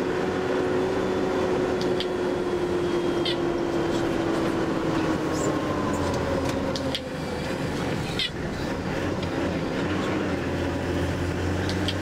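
Tour bus running along a wet road: a steady engine hum that slowly drops in pitch and rises again as the speed changes, over road noise. Short high squeaks come every couple of seconds.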